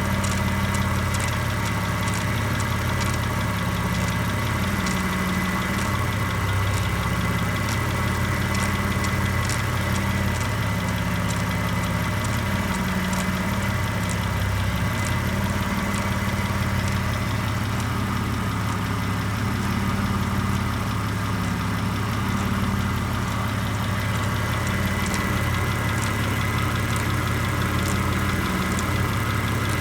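Mitsubishi 3000GT's V6 engine idling steadily, with an irregular light ticking over the hum: the engine noise the owner is recording as a possible fault.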